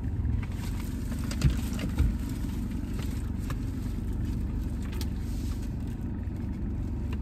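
Low steady rumble of a car's engine and tyres heard inside the cabin as it creeps along, with two short knocks about a second and a half and two seconds in.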